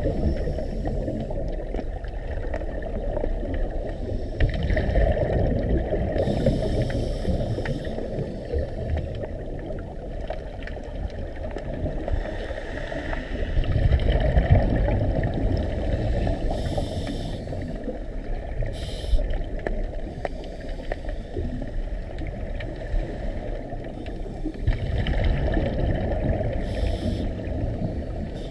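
Scuba divers breathing underwater: a hissing bubble burst from a regulator exhaust every few seconds, over a steady muffled rumble of water on the microphone. The loudest burst comes about halfway through.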